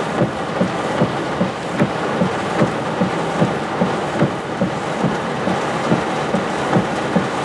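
Storm wind and rain making a loud, steady rushing noise, with a regular low thumping about two and a half times a second.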